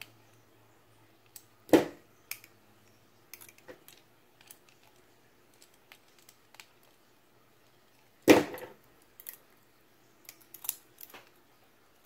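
Small metal clicks and taps as a precision screwdriver tightens the pivot screw of a balisong (butterfly knife) to take up a loose blade. Two louder knocks come about two seconds in and about eight seconds in.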